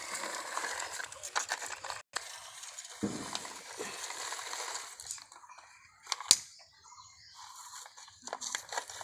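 Plastic toy excavator pushed by hand over gritty concrete, its wheels scraping and rattling, with scattered clicks. It goes quieter after about five seconds, and there is one sharp knock about six seconds in.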